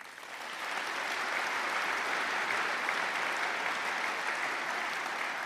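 A large seated audience applauding steadily, swelling in at the start and beginning to fade near the end.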